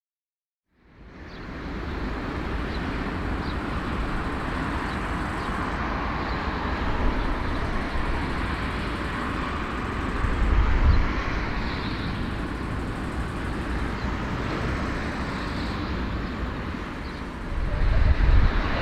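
Large aircraft's jet engines running with a steady roar and low rumble. It starts about a second in, swells briefly about ten seconds in, and grows louder near the end.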